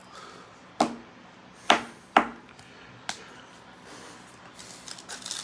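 Trading cards being handled: four short, sharp clicks of cards being tapped or set down, then faint rustling toward the end as the next cards are shuffled.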